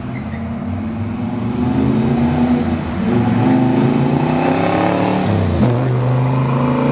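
Freshly built 409 cubic-inch 450 hp V8 of a 1963 Chevrolet Impala SS409 accelerating through its dual exhaust, the engine note climbing, then dropping sharply at a gear change about five and a half seconds in before it runs on steadily.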